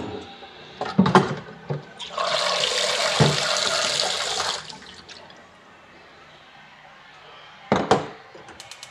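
Kitchen tap running into a cooking pot for about two and a half seconds, filling it with water to boil eggs. A few clunks of the pot against the sink come before the water, and a couple of knocks come near the end.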